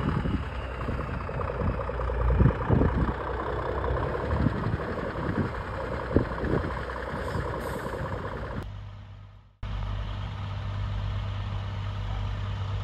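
Heavy diesel lorry engines running: first one with scattered knocks and clatter over its steady running, then after a sudden break, another lorry engine running steadily with a strong low hum.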